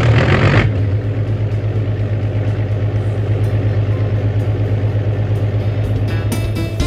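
Excavator's diesel engine running steadily with a fast, even throb, louder for the first half-second or so before settling.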